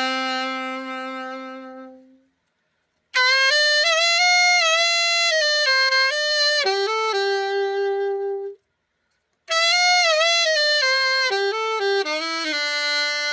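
Alto saxophone played solo in short melodic phrases, each ending on a long held note that fades away, with two abrupt silent breaks between them. It is the play test of a freshly overhauled Selmer Reference 54 alto.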